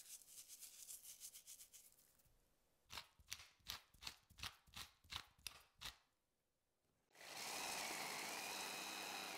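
Salt sprinkled by hand into a plastic chopper bowl as a fine patter, then a pepper mill turned over the bowl, about a dozen clicks at roughly three a second. About seven seconds in, the electric mini chopper starts and runs steadily, blending the hazelnut and breadcrumb topping into a fine meal; this is the loudest part.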